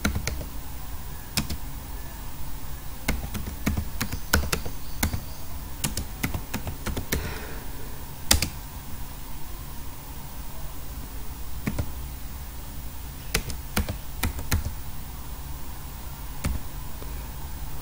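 Typing on a computer keyboard: irregular keystrokes in short runs with brief pauses, one stroke about eight seconds in louder than the rest.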